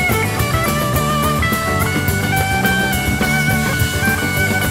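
Background rock music with an electric guitar playing a held, stepping melody over a steady drum beat.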